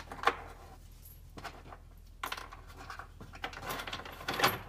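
A few sharp metallic clicks and clinks of hand tools or hardware being handled, the loudest about a quarter second in and a cluster near the end, over a low steady hum.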